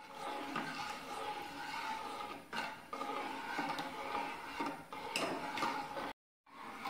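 A steel ladle stirring thin buttermilk-and-gram-flour kadhi in a metal pot, scraping and clinking against the pot's side, with a few sharper clinks. The batter is kept stirred continuously as it heats toward the boil so the buttermilk does not split.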